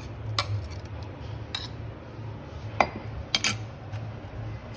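A steel spoon scraping and knocking against the inside of a stainless-steel mixer-grinder jar as ground paste is scraped out, giving a few short sharp metallic clinks, two close together about three and a half seconds in. A low steady hum runs underneath.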